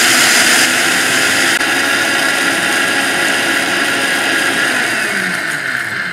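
Sujata Multimix mixer grinder's 900-watt motor running at speed, grinding dry rice to powder in its steel jar. A loud, steady whirring that eases slightly towards the end.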